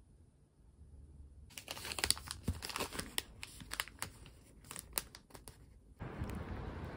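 Plastic wrapper of a disposable hand-warmer hot pack being crinkled and torn open: a dense run of sharp crackles. Near the end it gives way to steady outdoor street ambience.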